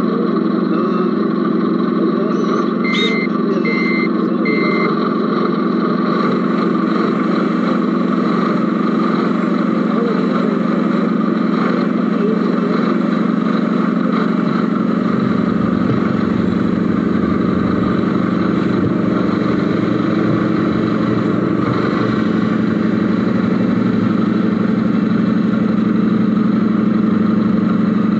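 RC Mercedes Actros SLT model truck running with a steady truck-engine sound, heard from inside its cab, with three short reversing beeps about three seconds in.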